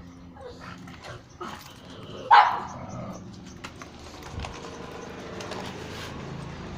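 A dog barking: one loud, sharp bark about two and a half seconds in, with a few fainter short sounds before it.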